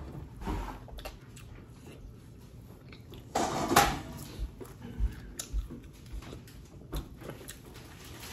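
Close-up eating sounds: a person chewing and biting meat off a chicken drumstick held in the hands, with small clicks and clinks of dishes. A louder burst of noise comes about three and a half seconds in.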